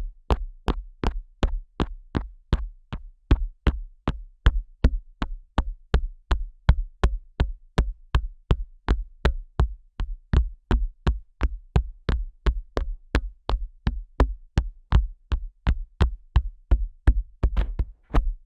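Fingers tapping and flicking the tragus of a Neumann KU100 dummy-head microphone's ear: a steady run of close, sharp clicks, about three a second, each with a deep muffled thump from pressure on the ear. In the last second the strokes turn rougher, closer to rubbing.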